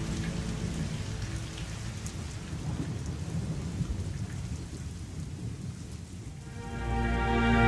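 Steady rain falling with a low rumble of thunder. Music comes in near the end.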